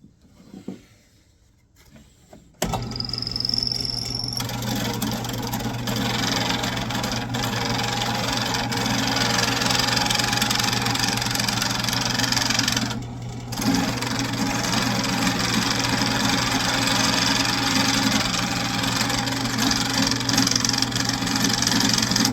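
Wood lathe switching on about two and a half seconds in and running steadily, with a constant low motor hum and a brief dip about thirteen seconds in, while a thin dowel that already wobbles is turned in it.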